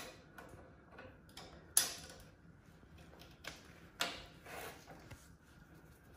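A bottle jack under a lawn tractor's rear frame being pumped with its long steel handle: a series of irregular metallic clicks and clanks, the loudest about two seconds in.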